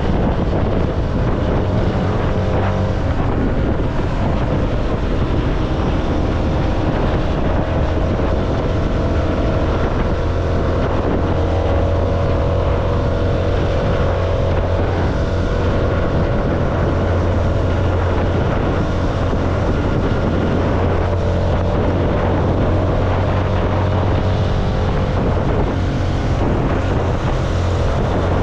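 CFMoto motorcycle engine running steadily while riding along, with wind noise on the microphone.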